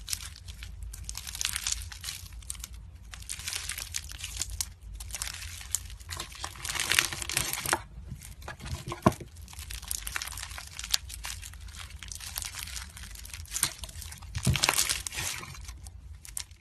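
Hands squeezing and pressing a lump of bubbly, crunchy slime, making dense crackling and popping clicks that swell into louder bursts every few seconds.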